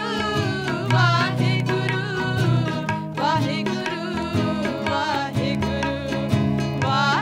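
Sikh simran kirtan: voices singing over sustained harmonium tones, with tabla strokes and plucked strings from a guitar and a small lute.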